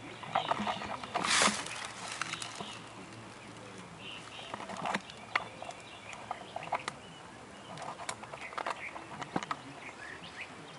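Handling noise from a rusty steel radiator shell and grille being turned over: scattered light clicks and taps, with a short rush of noise about a second in.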